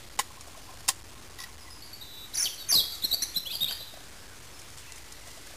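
A metal mess tin clinks lightly twice as it is set on a small camp stove. About two and a half seconds in comes a second or so of high crinkling as a sheet of tinfoil is moulded into a lid.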